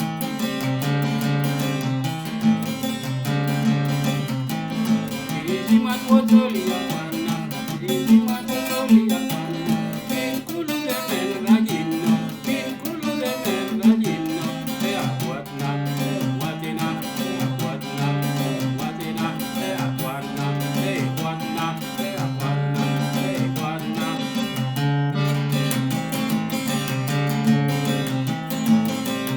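Instrumental guitar music: plucked and strummed acoustic guitar repeating a steady pattern.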